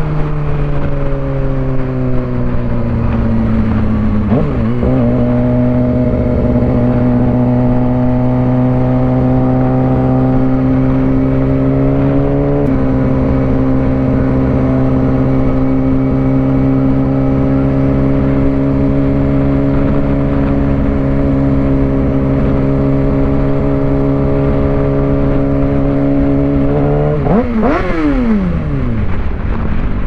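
2006 Suzuki GSX-R 600's inline-four engine running under way. Its pitch falls for the first few seconds, changes about four seconds in, then holds steady and climbs slowly for over twenty seconds. Near the end it rises briefly, then drops away steeply as the engine slows.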